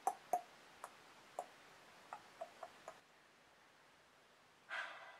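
Faint mouth clicks: about eight short, irregular ticks in the first three seconds, then a short breathy exhale near the end.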